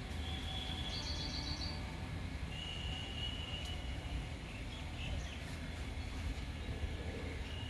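Birds chirping over a steady low rumble, with a quick trill about a second in and a longer held whistled note around three seconds in.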